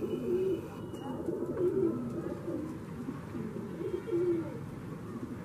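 Domestic pigeons cooing: a run of low, warbling coos, one after another.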